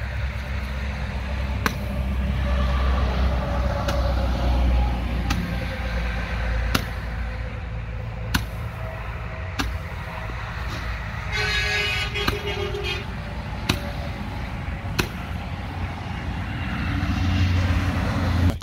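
Aerial fireworks going off as a string of sharp pops about every second and a half, over a steady low rumble. Around the middle, a horn sounds on one steady note for about a second and a half.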